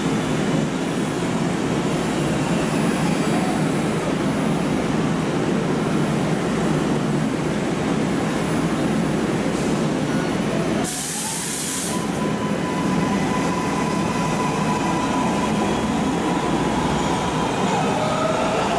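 MARTA rapid-transit train standing at an underground platform with its equipment running steadily. About eleven seconds in, a sharp burst of air hiss lasting about a second is followed by a steady whine. Near the end the whine rises in pitch as the train starts to pull away.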